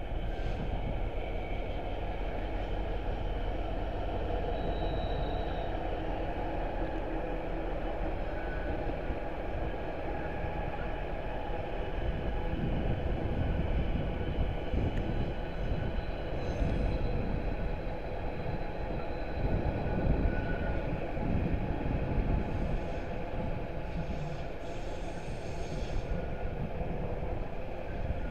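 Intermodal container freight train passing at steady speed: a continuous rumble of wagon wheels on the rails, with a few faint high wheel squeals.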